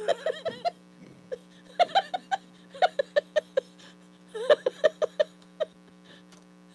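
Two people laughing hard in four bursts of quick, short "ha" pulses, with gaps between them, over a steady low hum.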